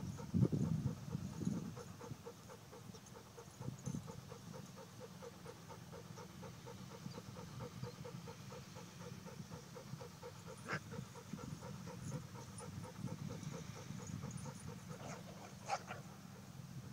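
Steady rhythmic panting close to the microphone. A short, sharper, higher sound cuts in twice, about two-thirds of the way through and again near the end.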